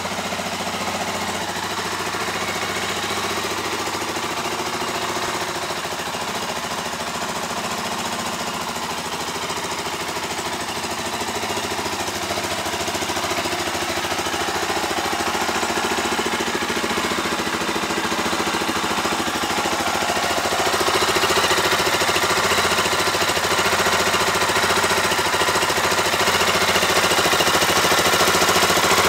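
Stels GT 400 engine running steadily after being started following a repair, with a fast pulsing beat. It gets somewhat louder about two-thirds of the way in.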